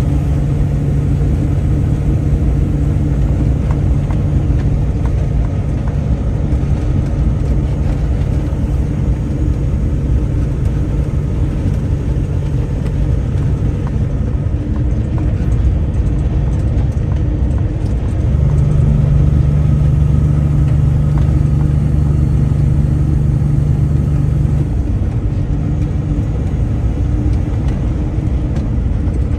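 Vehicle engine running steadily at road speed, heard from on board with road and wind noise. The engine note grows louder about two-thirds of the way through, then eases back near the end.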